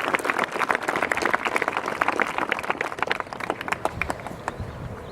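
Audience applauding, many hands clapping, thinning out and dying away about four seconds in.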